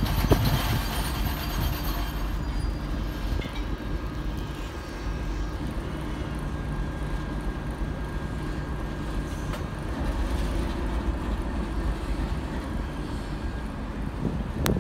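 TEP70 diesel locomotive's 16-cylinder diesel engine running steadily as the locomotive rolls slowly toward the listener: a continuous low rumble.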